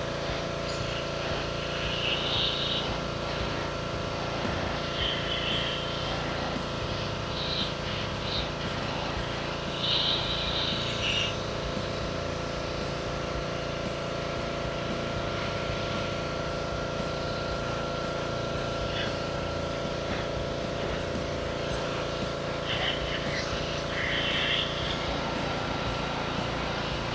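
Pressure washer running steadily, its high-pressure spray hissing in short spells as it blasts dirt off a boat's fiberglass swim platform.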